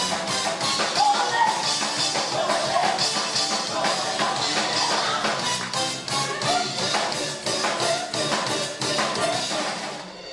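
Live band playing an upbeat rock-and-roll number with drum kit and a singer, fading out near the end.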